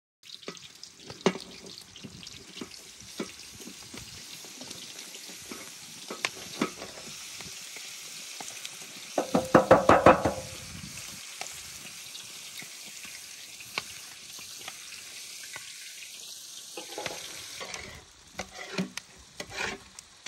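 Food sizzling with a steady hiss in a large aluminium pot over a wood fire, with scattered clicks. About ten seconds in, a metal tray clanks against the pot several times with a ringing tone. Near the end, a long metal spoon scrapes and stirs in the pot.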